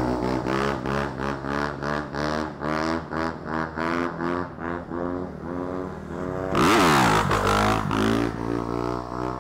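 Small off-road motorcycle engine running with a rhythmic pulsing. About two-thirds of the way through it revs louder, with a quick rise and fall in pitch, as a dirt bike is pulled into a wheelie close by.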